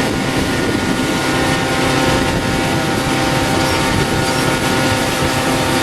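Steady machine noise with a constant, unchanging hum of several held tones.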